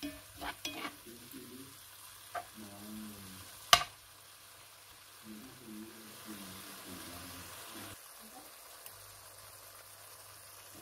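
Chicken pieces with onion, ginger and garlic sizzling in oil in a pan while being sautéed, stirred with a spatula that clicks and scrapes against the pan a few times in the first few seconds, with one sharp knock on the pan about a third of the way in.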